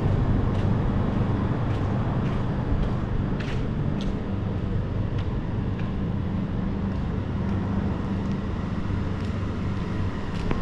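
Steady low hum of a running engine or machine outdoors, with faint short ticks over it every half second or so.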